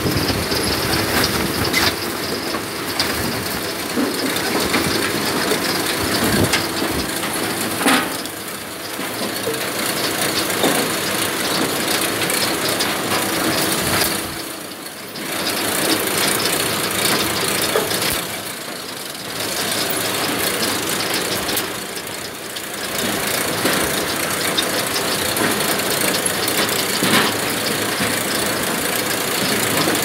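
Cassava harvester running: a dense clatter and rattle of its working parts over a steady hum, easing off briefly a few times around the middle.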